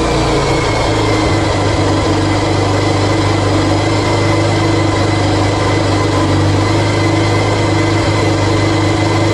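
Motorcycle engine idling steadily close under the microphone, a constant low hum with a thin high whine above it.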